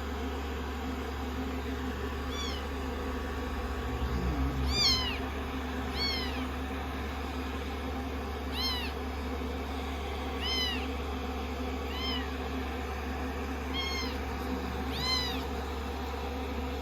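Young kitten mewing, about eight short high-pitched mews, each rising and then falling in pitch, spaced a second or two apart over a steady low hum.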